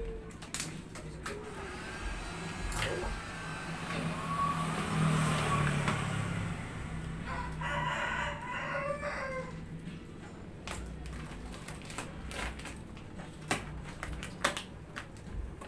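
Plastic vinyl wrap film crackling and clicking as it is stretched and pressed onto a scooter's front panel. A low hum swells around five seconds in, and a long drawn-out call lasting about two seconds follows just after.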